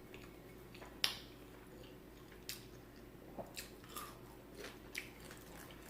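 Faint chewing of a fried chicken sandwich, close to the microphone: scattered small wet clicks and crackles of the mouth, with one sharper click about a second in.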